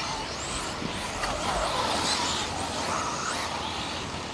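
Several 1/10-scale electric off-road RC race cars running together: overlapping high whines from their electric motors and drivetrains rise and fall in pitch as the cars speed up and slow down through the track.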